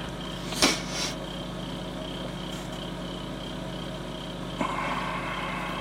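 A brief knock and clatter of a hard plastic model kit being handled on a cutting mat, about half a second in, over a steady electrical hum.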